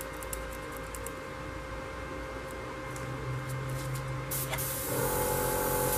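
Airbrush spraying: a low steady hum comes in about three seconds in, and a steady hiss of air from the airbrush starts just after four seconds, growing louder about a second later. The thick burnt brown-red paint is only just beginning to come out of the airbrush.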